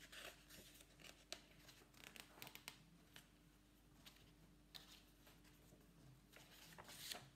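Faint rustling and soft flicks of stiff picture-book pages being turned by hand, with a slightly louder swish near the end, over a faint steady room hum.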